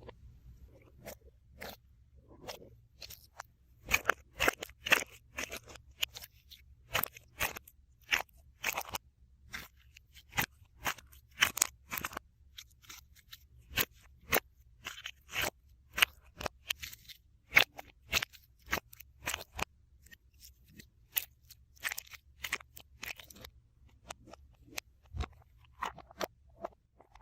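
Crisp, sharp snips and crunches at an irregular pace, singly and in quick clusters of two or three.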